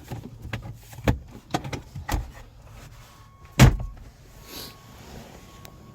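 A car's glove box being opened and handled: a run of clicks and knocks, then one loud thump about three and a half seconds in.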